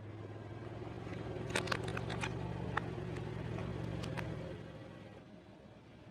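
A car rolling slowly with its engine running low and steady while its tyre crushes crunchy items, giving a run of sharp cracks and snaps from about a second and a half in to about four seconds in. The engine sound fades away about three-quarters of the way through.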